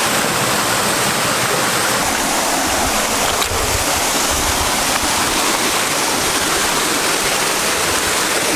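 Waterfall cascading steadily, a loud, even rush of falling water.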